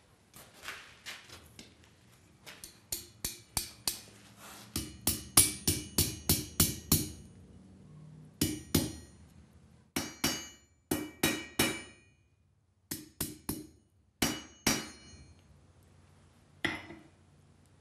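Blacksmith's hand hammer striking a hot steel bar on an anvil, folding the bar's end back on itself to form a handle. Each blow rings. A steady run of about a dozen blows, two or three a second, is followed by shorter groups of blows with pauses between, and a single blow near the end.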